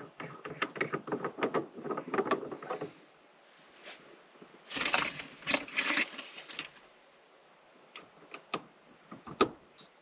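Hand-work noises on a shift knob: a run of small clicks and rattles, then a louder burst of rattling about five seconds in, and a few sharp clicks of metal parts near the end.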